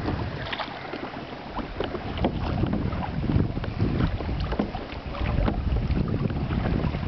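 Rushing, splashing water of a flooded river, with wind buffeting the microphone in a gusting low rumble that grows stronger about a second and a half in.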